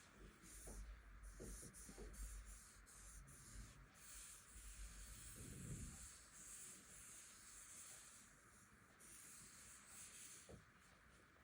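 Faint handling sounds of an unboxing: soft rubbing and scattered light taps and clicks as hands work a smartphone and its packaging, with a longer rub about halfway through.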